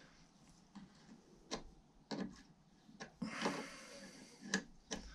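Faint, irregular metal clicks and clinks of a small spanner working a tiny nut tight on the ignition points' wire terminal, about half a dozen sharp ticks with a brief scrape a little past halfway.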